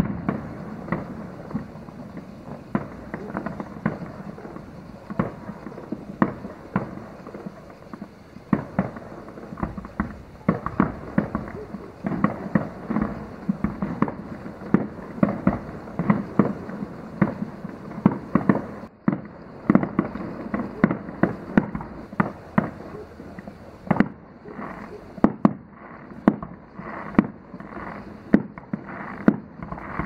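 Fireworks display about a mile away: aerial shells bursting in a rapid, continuous barrage of bangs and crackles over a rolling rumble. The bangs come sharper and more separate in the last few seconds.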